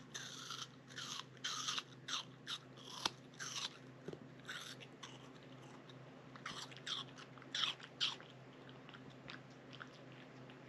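A golden retriever puppy chewing, making a run of short, irregular crunches that grow sparser and fainter after about eight seconds.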